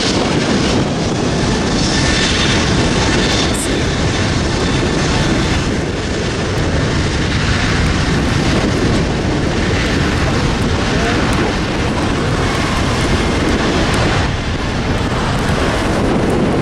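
Airbus A380's four Rolls-Royce Trent 900 jet engines at takeoff power, a loud steady rumble as the airliner rolls down the runway.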